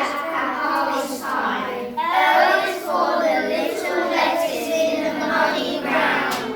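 Children singing together, a group of young voices carrying a melody.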